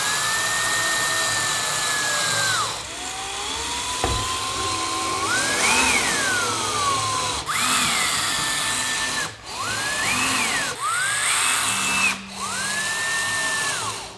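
Cordless drill/driver driving sheetrock screws through wood and sheetrock into framing. The motor whine runs in about six short bursts, each rising in pitch as the motor spins up, holding, then falling away, with brief pauses between.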